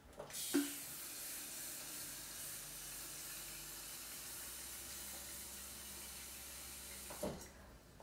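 Kitchen faucet running a steady stream of water into a stainless-steel-lined electric kettle, then shut off about a second before the end.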